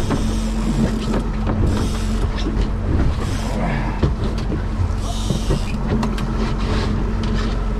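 Boat engine running steadily with a constant low hum, with short rushes of hiss a few times over it.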